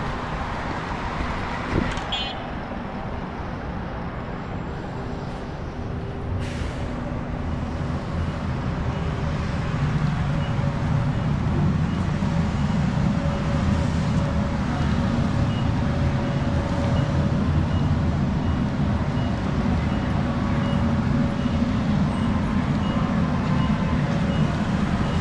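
City street traffic: a low, steady rumble of passing vehicles that grows louder about a third of the way in. A faint high-pitched beep repeats a little more than once a second through the second half.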